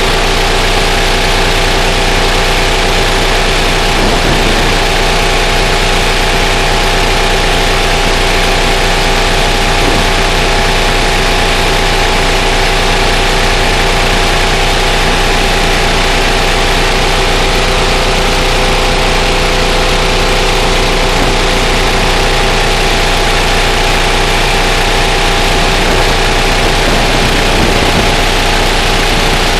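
A variable-balance elliptical shale shaker running steadily on oil-based drilling mud: a loud, even mechanical hum with several fixed tones over a wide noise, unchanging throughout.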